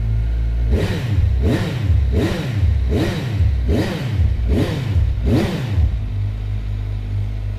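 Kawasaki Z1000SX inline-four motorcycle engine idling, then blipped on the throttle about seven times in quick succession, about one rev every three-quarters of a second, each rising and dropping straight back, before settling to idle again near the end.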